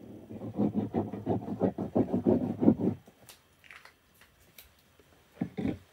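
Tip of a liquid glue bottle rubbing over cardstock in quick back-and-forth zigzag strokes, several a second, stopping about three seconds in. A couple of brief soft knocks come near the end.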